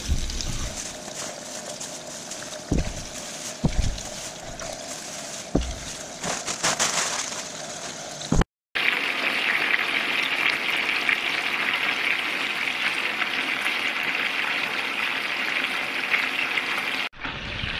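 Chicken thighs and drumsticks sizzling skin side down in hot oil in a frying pan. There are a few soft thuds as pieces go into the pan. About halfway through the sizzle becomes louder and steadier as the chicken browns.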